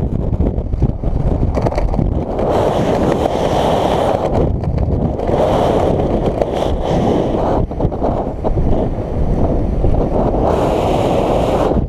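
Wind rushing over a skydiver's helmet-camera microphone: a loud, unbroken rumble that swells and dips.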